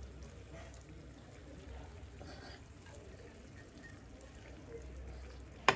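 Maize and beans simmering faintly in a metal pan on a gas stove, with one sharp knock near the end.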